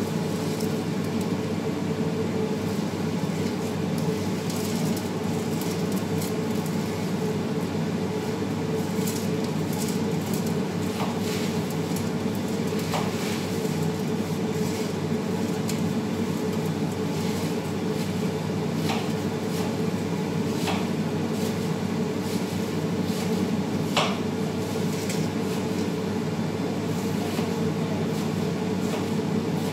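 Steady low hum in a kitchen, with a few light metallic clinks from pots, a colander and a metal bowl being handled.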